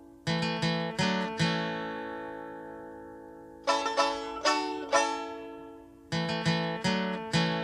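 Music played on a plucked string instrument: slow groups of four chords, each group left to ring and fade before the next begins, three groups in all.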